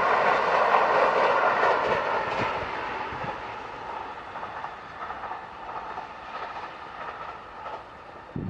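A Kintetsu Nagoya Line train passing and moving away, its rolling noise and wheel clatter fading steadily.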